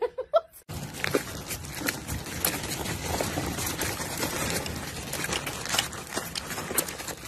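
Small plastic wheels of a toy push-cart rolling over asphalt, a steady rumbling rattle with frequent small clicks and knocks as it is pushed along.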